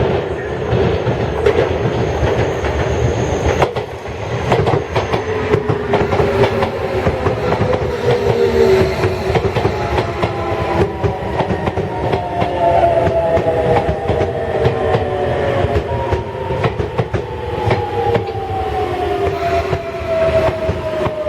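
Sagami Railway 8000 series electric train running, its traction motors whining in several tones that slowly fall in pitch, with repeated clicks of the wheels over the rail joints.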